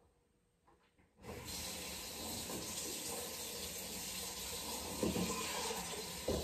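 Water running hard from a kitchen faucet into the sink. It starts suddenly about a second in and runs steadily, with a knock or two near the end as it is shut off.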